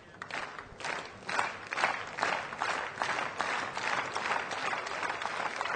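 Tennis crowd applauding a point won, the score now level at 2-all. Scattered claps build over the first second or two into steady applause.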